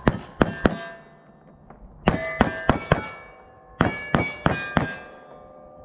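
Pistol fired in three quick strings of three to four shots, the hits ringing off steel targets, with the ringing dying away after each string.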